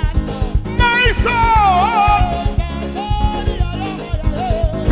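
Live band music: a drum kit played with sticks, snare and cymbals keeping a steady beat, with a voice singing gliding, held notes over it.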